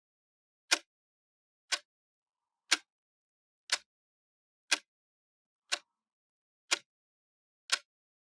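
Clock ticking steadily, one sharp tick a second, with silence between the ticks.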